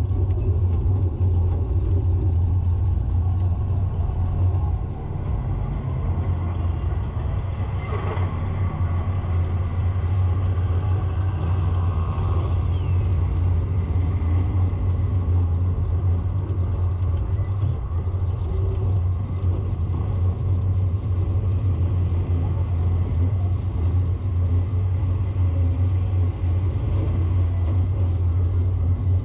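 A steady low rumble, with a brief high chirp about eighteen seconds in.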